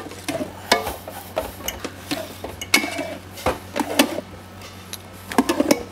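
A metal paddle beater and scraper knocking and scraping around a stainless steel mixer bowl of thick choux paste, worked by hand. The clacks come at irregular intervals over a steady low hum.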